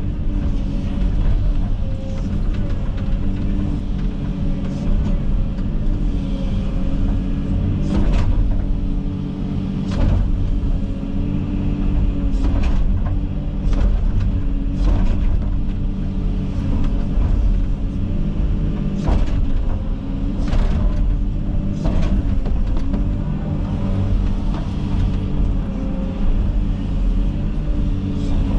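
Komatsu 360 excavator's diesel engine running steadily under hydraulic load, its pitch wavering a little, with sharp cracks and knocks at irregular intervals as the bucket and thumb work through thick brush.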